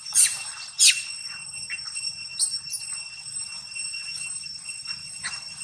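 Steady high-pitched outdoor insect drone, with short sharp high chirps over it: two loud ones in the first second, then fainter ones scattered through.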